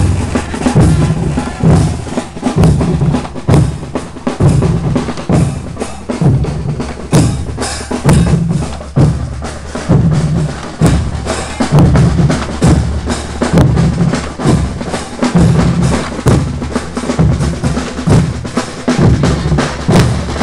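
A marching band's drum section playing a steady marching beat: bass drums striking about once a second under rattling snare drums and rolls.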